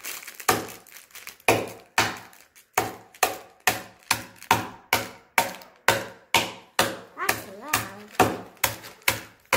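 A butter knife repeatedly strikes a hard plastic slime container sealed in a bag, on a tarp-covered table, to break it into small pieces. Loud, sharp knocks come a few at first, then speed up to about four a second.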